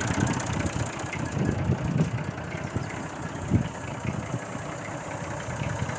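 Massey Ferguson tractor engine idling steadily, its air intake drawing the vacuum for a portable milking unit.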